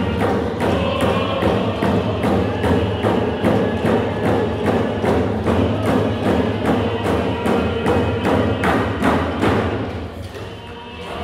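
Powwow drum group: a large drum struck in a steady, even beat with singers chanting over it. The drumming and singing drop away briefly near the end.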